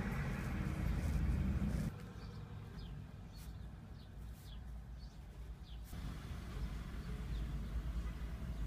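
Outdoor background noise: a steady low rumble like distant traffic that drops off sharply about two seconds in, with several short, high, falling chirps like birdsong in the middle.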